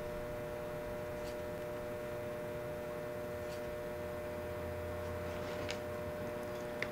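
Steady electrical hum, with a few faint clicks over it.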